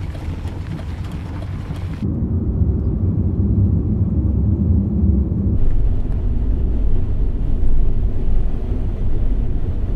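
A steady low rumble. The higher hiss over it cuts out abruptly about two seconds in and comes back a few seconds later.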